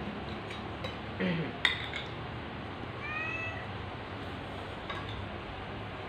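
A domestic cat meowing once, a call that rises and then falls, about three seconds in. A sharp clink a little before it is the loudest sound.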